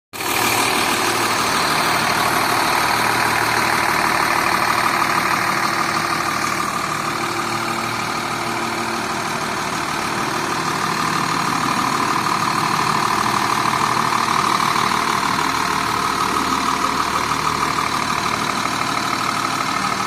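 Cummins ISC inline-six diesel of a 2000 Blue Bird TC2000 rear-engine school bus idling steadily.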